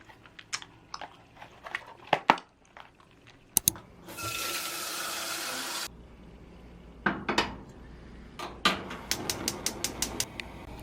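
Kitchen sounds: dishes and utensils clink and knock, and a tap runs for about two seconds partway through. Near the end comes a quick run of clicks.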